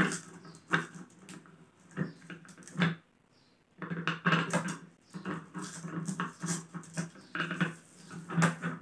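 Clicks, taps and scrapes of a car polisher's backing plate being handled and twisted by hand onto its spindle. A low whine-like sound comes and goes behind them.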